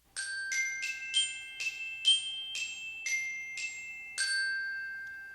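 Short musical jingle of high, bell-like mallet notes, about ten struck one after another, the last one ringing on and slowly fading.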